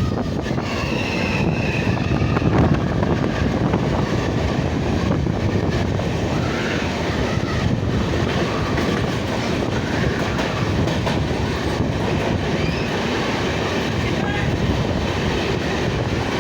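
Train running, a dense steady rumble with faint high squeals coming and going.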